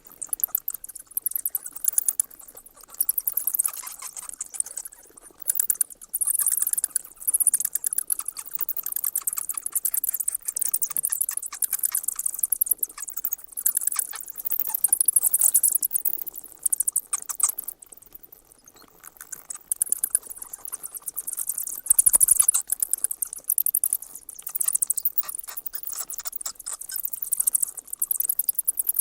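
Bats squeaking: a dense, continuous chatter of rapid high-pitched chirps that swells and fades, with a brief lull about two-thirds of the way through.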